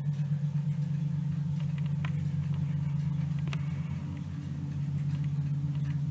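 A low, steady droning rumble with a fast flutter and a few faint ticks; it dips slightly about two-thirds of the way through.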